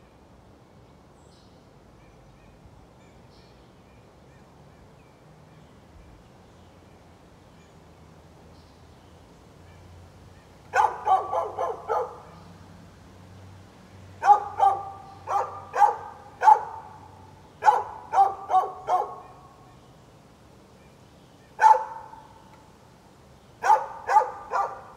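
A dog barking in short runs of quick barks. The first run starts about ten seconds in, several more runs follow, and a single bark comes between the last two.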